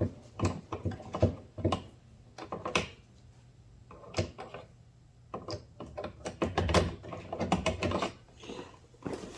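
Irregular clicks, taps and knocks of hand tools and plastic trim pieces being handled on a car door's interior panel. The sounds pause for about two seconds near the middle, then come thick again.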